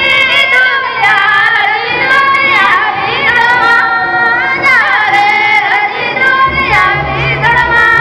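Women's voices singing a Karma folk song in unison, holding long high notes that slide down at the end of each phrase. A drum comes in underneath about six and a half seconds in.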